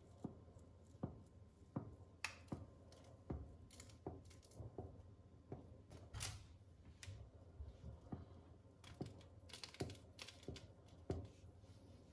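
Irregular light clicks and taps, about one or two a second.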